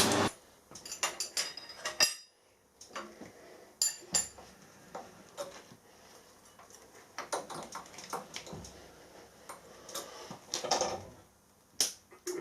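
Small steel tools being handled: a scattering of light metal clinks and taps, some with a brief ring, coming irregularly throughout.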